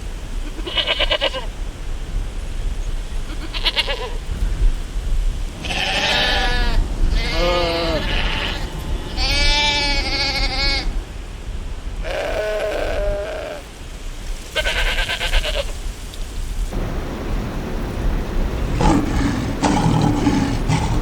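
A run of about seven bleats from farm animals, one after another, each a wavering pitched call lasting about half a second to a second and a half. In the last few seconds a rushing noise takes over.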